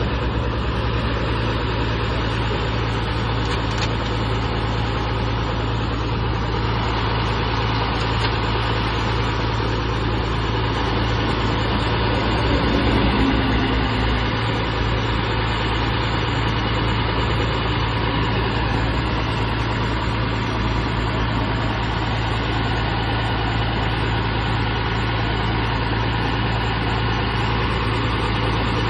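Hino R260 bus's six-cylinder turbo-diesel engine running steadily: an even, low drone with no revving.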